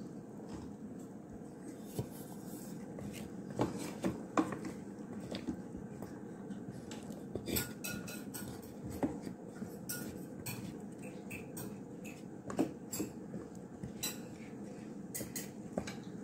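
Wooden spoon stirring chunks of potato and carrot in a pot of stew, knocking and scraping against the riveted metal pot in irregular clicks and knocks over a low steady background noise.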